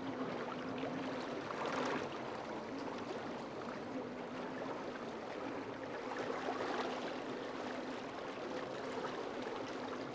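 Boat's motor running with a steady low hum under a continuous hiss of water.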